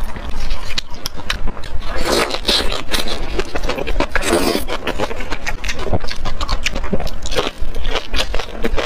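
Close-miked eating sounds: wet chewing and biting of spicy grilled skewered meat and vegetables, crackly with many quick clicks. Plastic gloves rustle as the food is pulled apart.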